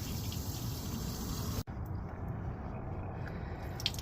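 Water running steadily through a travel trailer's plumbing as the line is flushed until pink RV antifreeze comes through. About a second and a half in, the sound cuts out for an instant, then goes on.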